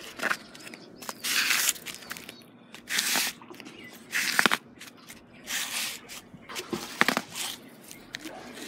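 Rubber flip-flop sole scraping and grinding on gritty concrete in about half a dozen short strokes, shredding a dead scorpion underfoot.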